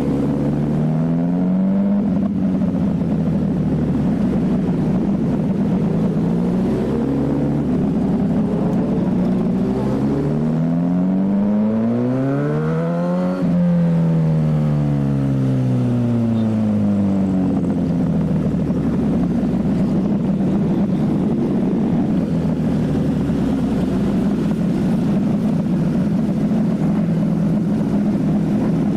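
Motorcycle engine running, its pitch rising and falling several times as the throttle is opened and closed, climbing to a peak about halfway through and then falling away.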